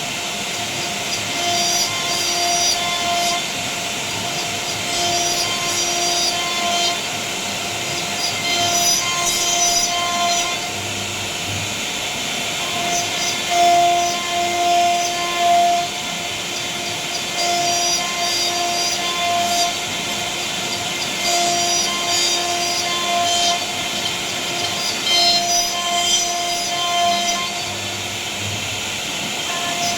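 CNC router spindle running and cutting a panel: a steady high whine with a rasping cutting noise that swells and eases every second or two as the bit moves along the design.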